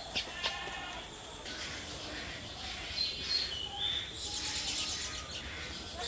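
Baya weavers chirping at their woven nests: short sharp chirps near the start, high whistled notes about three seconds in, then a fast buzzy trill lasting about a second.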